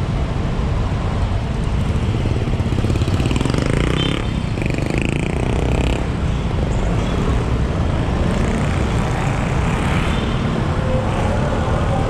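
Street traffic of cars and motorcycles running close by, heard from a moving bicycle, with a steady low rumble throughout and a louder passing vehicle about four seconds in.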